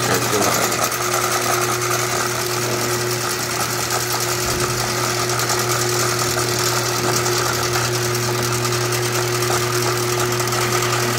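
Overhead Door R80-z commercial garage door opener running on the bench: its electric motor drives the V-belt and roller chain in a steady mechanical run. It cuts off near the end.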